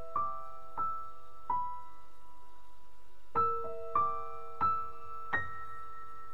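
Background music: slow, sparse piano notes struck one or two at a time, each left to ring.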